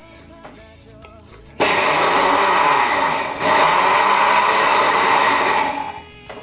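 Countertop blender's small grinding jar running, crushing Oreo and other biscuits into crumbs. It starts abruptly about a second and a half in, dips briefly partway through, and stops shortly before the end.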